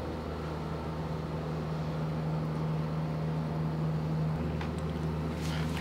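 Steady low machine hum with no speech, shifting slightly about four and a half seconds in.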